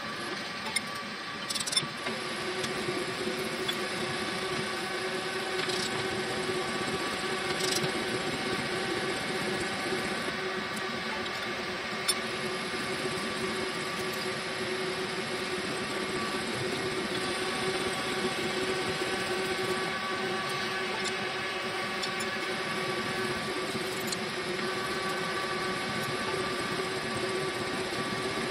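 A vertical slotting machine running steadily while its single-point cutter slots the tooth floors of a steel gear, giving a steady machine hum. A few sharp clicks come in the first several seconds and one more about twelve seconds in.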